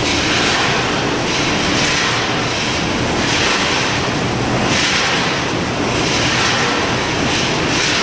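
Vertical form-fill-seal packaging machine running on the factory floor: a steady loud din, with a hiss swelling about every second and a half in time with its cycle.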